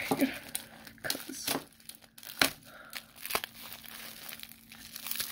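Clear plastic wrapping crinkling and crackling in the hands as it is pulled off a phone charger, in irregular bursts with the sharpest crackle about two and a half seconds in.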